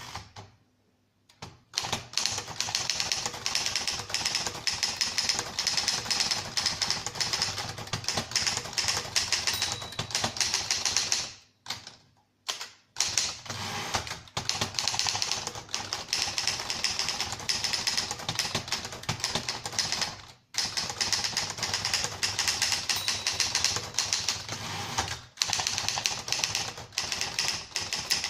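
A 1950s Remington Rand standard manual typewriter, Torpedo-built, being typed on at speed: a fast, dense run of sharp key strikes. The typing stops for about a second and a half partway through and breaks off briefly twice later.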